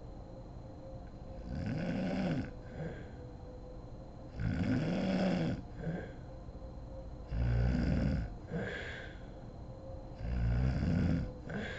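A sleeping woman snoring heavily: four loud snores about three seconds apart, each followed by a short, softer breath.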